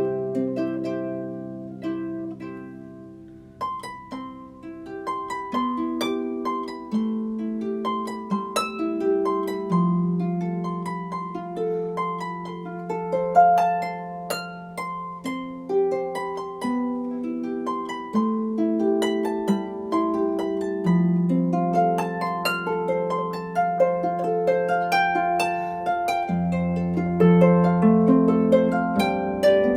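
Solo harp music: plucked notes ringing over held bass notes, in a slow, gentle melody.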